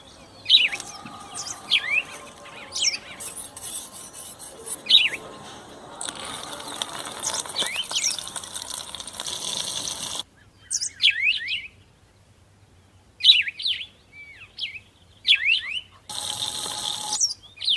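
A small bird chirping repeatedly: short, sharp downward-sliding chirps, singly or in quick pairs, every second or two. Twice a steady hiss runs under the chirps for a few seconds, the first about six seconds in and the second near the end.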